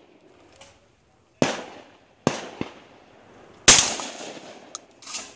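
Shotgun firing at clay targets: three sharp reports with echoing tails about 1.5, 2.3 and 3.7 seconds in, the last the loudest, with a few fainter sharp clicks between them.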